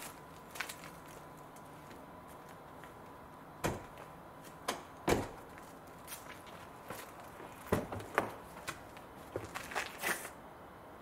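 Footsteps and a scattering of short knocks and clicks, with a cluster near the end as the driver's door of a Mercedes CLK convertible is unlatched and swung open.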